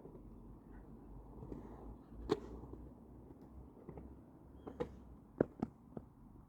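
Skateboard sounds: a low rumble with a handful of sharp clacks and knocks, the loudest about two seconds in and again after five seconds, with a quick cluster near the end.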